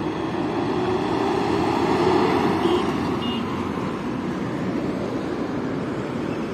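Road traffic: cars and pickups driving past, the noise swelling as one passes about two seconds in, with two faint short beeps about three seconds in.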